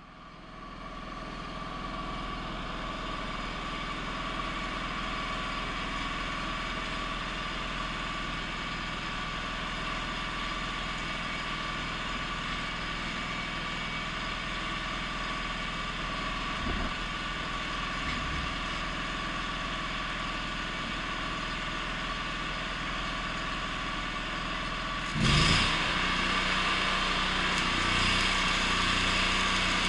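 Stick welding with a 6010 electrode on steel I-beam: a steady arc crackle and hiss with a faint machine hum. About 25 seconds in a loud knock, after which the sound gets louder with a steady low hum.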